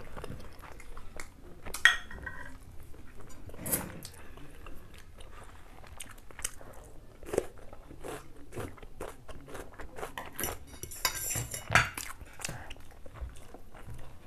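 Close-up eating sounds of two people on chicken and noodles: chewing and biting, with forks and spoons clinking on ceramic plates. A few sharper knocks stand out about 2, 4 and 12 seconds in.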